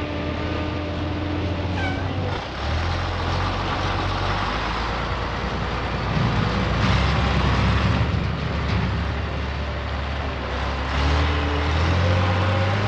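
Heavy DAF tipper truck's diesel engine running under load, a steady low drone whose pitch shifts a couple of times, about two seconds in and again near the end.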